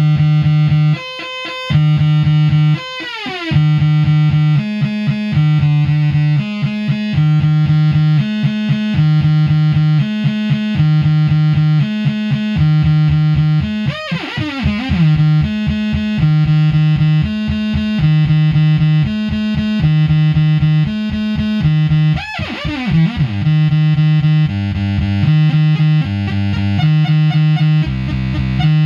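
DIY Eurorack modular synthesizer playing a repeating sequenced pattern of notes, its pitch driven by a sequencer and gates through an attenuverting mixer. The notes step between a few pitches, and the sound swoops in pitch a few times, near the start, about halfway and about three-quarters through, as the mixer's knobs are turned.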